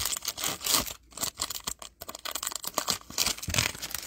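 Foil wrapper of a Panini Optic trading card pack being torn open and crinkled by hand, a quick irregular run of crackling rustles that stops near the end.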